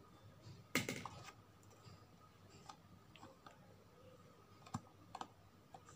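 A few faint clicks and taps of a cardboard toothpaste box being handled, with the loudest cluster about a second in.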